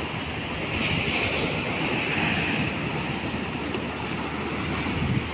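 Sea surf breaking and washing over shore rocks, a steady rush that swells about a second in as a wave comes through, with wind on the microphone.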